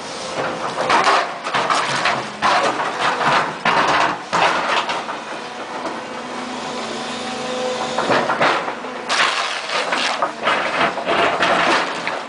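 Volvo EC290 excavator's diesel engine running under load while its ripper tooth tears through hard rocky ground, with repeated bursts of cracking and scraping rock. The bursts come in two spells with a calmer stretch of engine alone in the middle.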